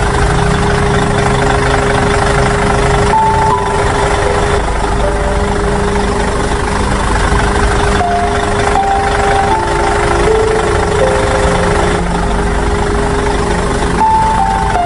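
A heavy vehicle engine runs steadily at idle with a low rumble. Over it plays a simple tune of short held notes that step up and down in pitch.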